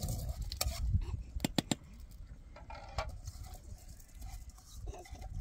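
A few light clinks and knocks of metal bowls, a pan and a ladle being handled, with a quick run of three clinks about a second and a half in and another near three seconds, over a low steady rumble.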